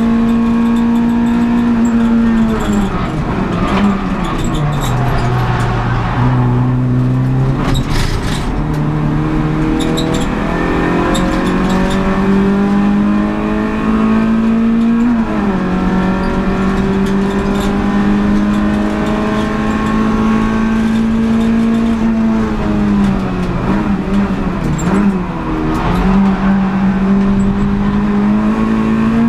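Renault Clio Sport 182's 2.0-litre four-cylinder engine heard from inside the race car's cabin at racing speed: held high, then dropping in steps through downshifts under braking a few seconds in, climbing back up through the gears, and dipping briefly again before picking up near the end.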